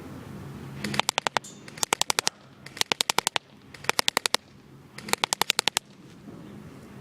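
Airsoft replica of a 1928 Thompson submachine gun firing on full auto: five short bursts of rapid snapping shots, about one burst a second.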